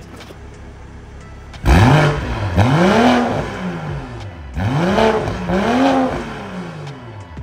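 BMW M340i's B58 turbocharged inline-six, breathing through a newly fitted stainless valved cat-back exhaust, idling and then revved twice with the throttle. Each rev is a double blip: the pitch climbs, dips, climbs again and falls back to idle.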